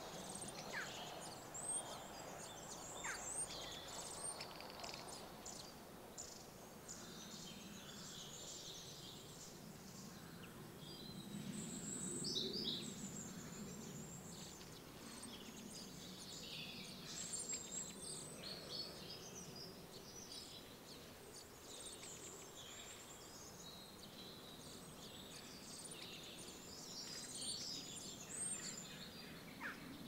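Spring garden birdsong: several species of birds singing and calling together, many short high chirps and song phrases overlapping throughout, with a faint low rumble underneath.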